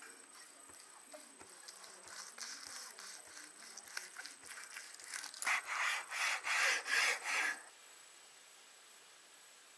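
Chef's knife sawing back and forth through the crisp roasted skin and meat of a stuffed turkey roll on a wooden board, a rasping scrape with each stroke. The strokes grow louder, and a run of about six strong ones near the end stops suddenly.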